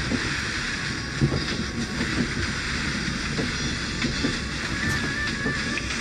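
A passenger train carriage under way: a steady rumble with small irregular knocks and a hiss.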